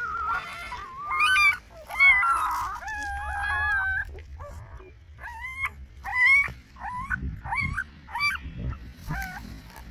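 Newborn puppies, eyes not yet open, crying while being picked up and handled: a string of short high-pitched yelps and whines, each bending up and down in pitch, coming about once a second in the second half.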